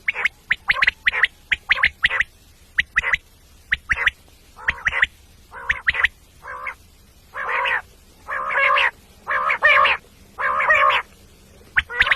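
Birds calling: a quick run of short, sharp calls, then about four longer, harsh squawks roughly a second apart in the second half.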